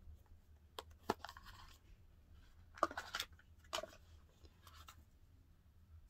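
A small product box and its packaging being handled and opened by hand: a few sharp clicks and short bursts of rustling and crinkling, scattered through the few seconds.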